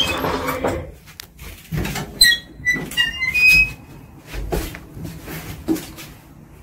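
Lift's sliding doors running shut, a noisy slide that stops about a second in, followed by a run of short high squeaks and a few knocks from the lift mechanism.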